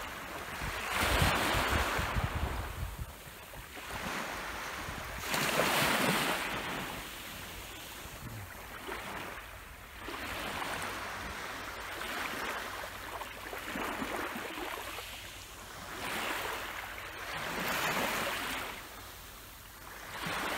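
Small waves washing up onto a sandy, pebbly beach, each swell of surf rising and falling every few seconds. Wind rumbles on the microphone during the first couple of seconds.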